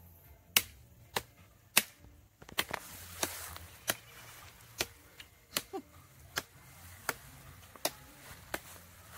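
Sugar cane being chopped with a knife: sharp chopping strikes at a steady pace, about one every two-thirds of a second, some fourteen in all.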